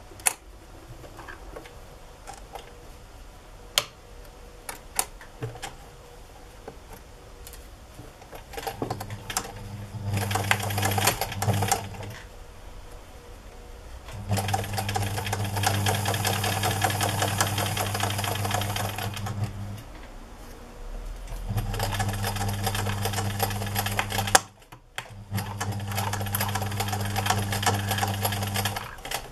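Electric domestic sewing machine stitching a seam in four short runs with brief stops between them, starting about nine seconds in; before that, a few light clicks of fabric being handled.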